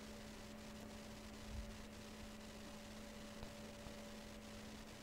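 A faint, steady low electrical hum, with light scratching of a marker writing on a whiteboard and a soft low bump about a second and a half in.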